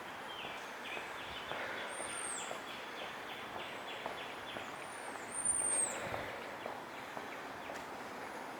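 Steady hiss of city street traffic, with a swell a little past halfway. Over it, birds give thin high chirps: one about two seconds in and two more around five seconds. In the first half there is also a quick run of high ticking notes, about three a second.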